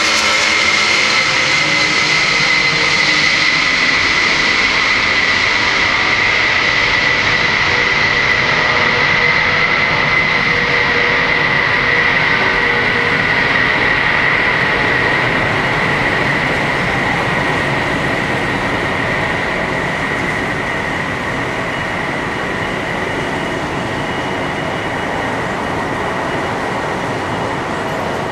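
Lockheed C-5 Galaxy's four General Electric TF39 turbofans at takeoff power: a screaming high-pitched whine over a steady roar as the aircraft rolls, lifts off and climbs away. The whine sags slightly in pitch and the whole sound fades gradually over the second half.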